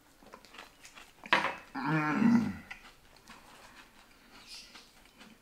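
A man groans in disgust at a mouthful of brown sugar that tastes bad to him: a harsh burst about a second in, then a wavering groan that drops in pitch before breaking off.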